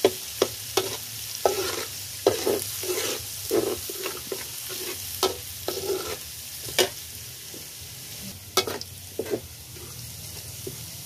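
Chopped food sizzling in hot oil in a steel wok, stirred with a metal spatula that scrapes and clacks against the wok at irregular intervals of about half a second to a second. The strokes thin out near the end while the sizzle goes on.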